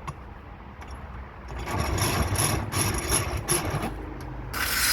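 Scrubbing rust out of the piston bore of a brake caliper: a run of rough strokes about two a second, then from about four and a half seconds a steadier, louder scrubbing.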